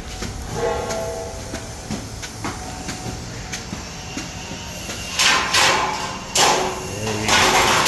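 Construction site work noise: a steady low rumble, then three loud harsh bursts of about half a second each, starting about five seconds in.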